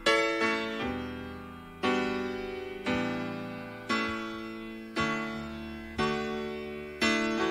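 Piano playing slow chords, one struck about every second, each left to ring and fade before the next.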